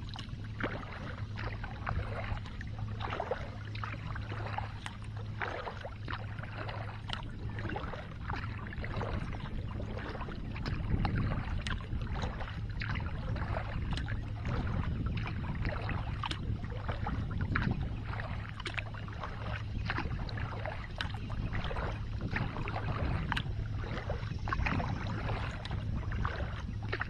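Kayak paddle strokes dipping into calm water in a steady rhythm, each with a short splash and trickle of drips, over a low steady hum.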